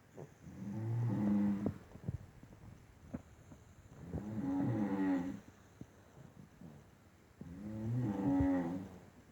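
Snoring: three long, rasping snores about every three and a half seconds, with a few small clicks in the quiet gaps between them.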